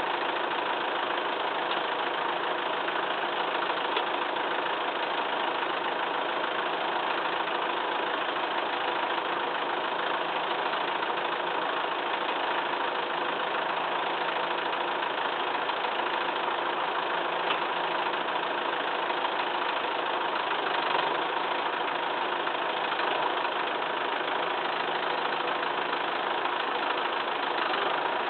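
Massey Ferguson 2635 tractor engine running steadily at idle.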